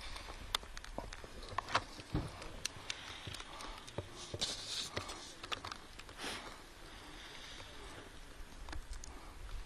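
Shell of a hard-boiled egg being cracked and peeled by hand: scattered small crackling clicks and rustles of shell breaking away.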